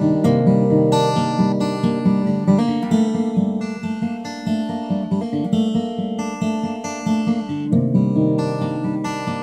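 Taylor 410ce acoustic guitar fingerpicked in DADGAD tuning, open strings ringing together under a melody. In the middle, quick repeated picked notes; fuller ringing notes return near the end.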